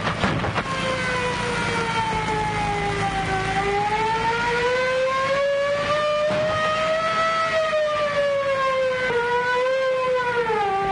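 Police car siren wailing, its pitch sliding slowly down, up and down again, over the steady running of car engines. A couple of sharp cracks come right at the start.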